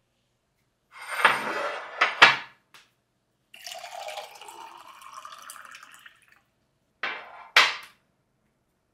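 Water poured from a plastic jug into a ceramic mug for about three seconds, the pitch of the pour rising as the mug fills. Before and after it, tableware clatters and knocks sharply on the table, the loudest knocks a little after two seconds in and near the end.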